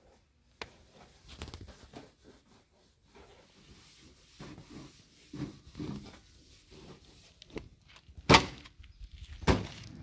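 Cloth rubbing and rustling over a tractor's painted bonnet, with scattered soft knocks, then two sharp thumps about a second apart near the end.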